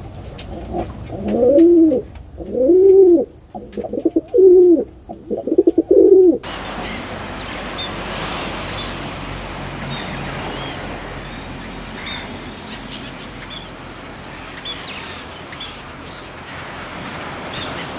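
A dove cooing four times, each a low coo that rises and falls in pitch, about a second apart. Then a steady outdoor hiss follows, with faint, high, short chirps from small birds.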